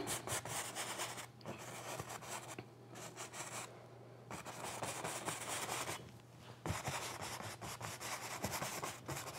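Paintbrush scrubbing oil paint onto a canvas in repeated strokes: a soft, scratchy rubbing that stops briefly a few times.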